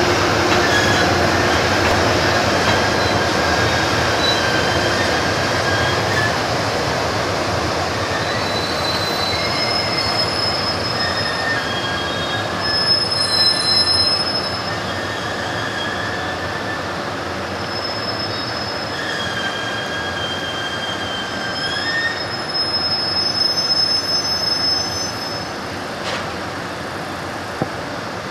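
Container freight train rolling slowly through a station yard with a steady rumble, its wheels squealing in a series of shifting high-pitched tones that come and go throughout.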